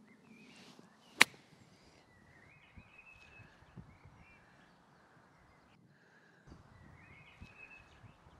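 Golf club chipping a ball out of deep rough: a short swish through the long grass, then one sharp strike about a second in.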